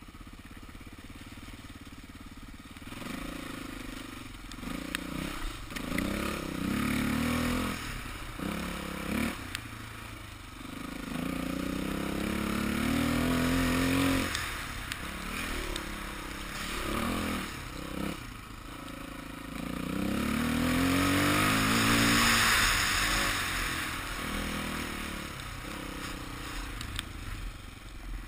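Dirt bike engine revving up and down while riding, rising in pitch through several pulls and dropping back between them, with a rushing hiss at its loudest pull near the end.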